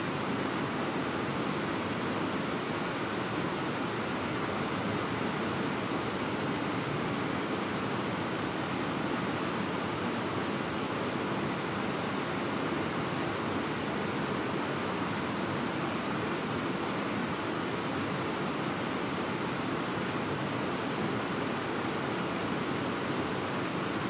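Fast-flowing mountain river rushing over rapids: a steady, unbroken rush of water.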